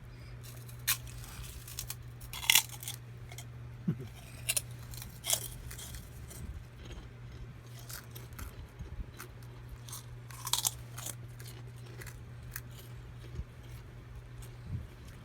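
Crackers being crunched and chewed in irregular crisp bites, a few louder crunches among softer ones, over a steady low hum.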